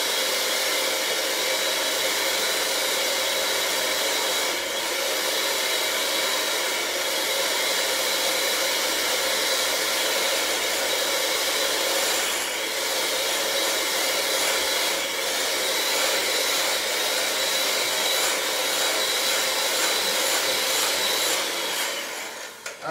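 Electric mixer running steadily, beating heavy cream with brown sugar syrup until it just thickens into a frothy topping. It switches off near the end.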